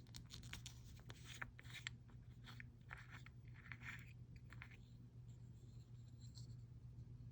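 Faint clicks and scratching of small powder jars and their packaging being handled, over a steady low hum; the handling noises thin out about five seconds in.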